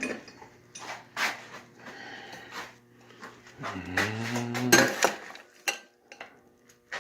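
Metal clinks and knocks as tools and parts are handled and set down around a metal lathe, with a brief pitched sound lasting about a second midway.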